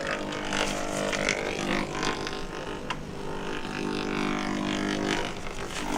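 Steady electrical buzz: a droning hum with many overtones, with a few faint clicks, heard while the magnetron's microwave emission is being measured.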